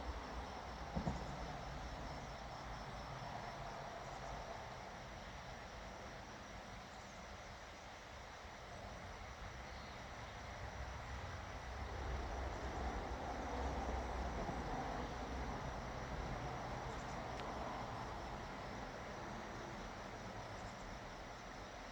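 Quiet outdoor ambience: a faint steady insect trill over a low rumble, with a brief knock about a second in.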